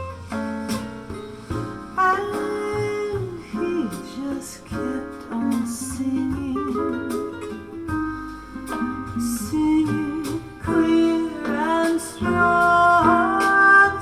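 Acoustic guitar music with wordless singing, played back through Technics EAS-20F20 loudspeakers with Hivi RT1L tweeters, driven by a DIY hybrid 12AU7 valve amplifier and recorded off the speakers.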